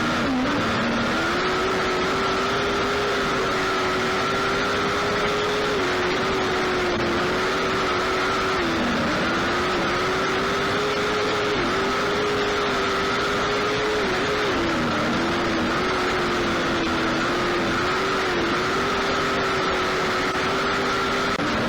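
Lightning sprint car engine running at high revs on a dirt oval, its pitch holding steady and dipping briefly every few seconds as the throttle is lifted for the corners.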